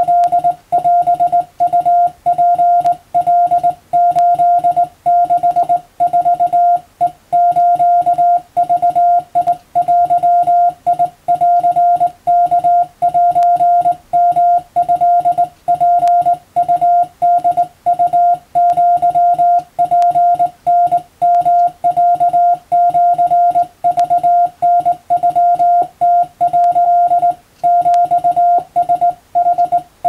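Morse code (CW) tone keyed by hand on a straight key: a single steady-pitched beep broken into dots and dashes at an even sending pace, spelling out Japanese wabun-code telegram text.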